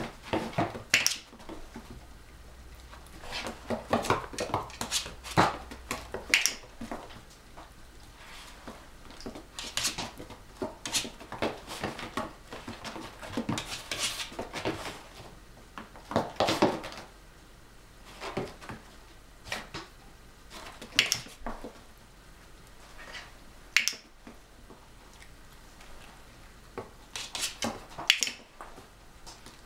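Italian greyhound's claws and paws clicking on a hard floor and tapping and scrabbling against a wooden cabinet door: an irregular run of sharp clicks and knocks.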